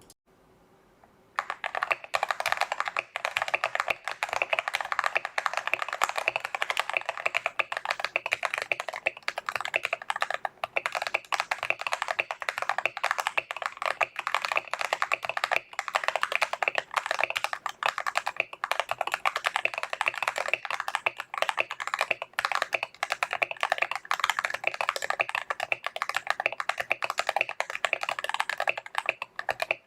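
Fast, continuous typing on a Tester68 mechanical keyboard with lubed Akko Jelly Purple tactile switches and XDA-profile PBT keycaps, the case tape-modded and filled with polyfill; a dense run of keystroke clicks starts about a second and a half in.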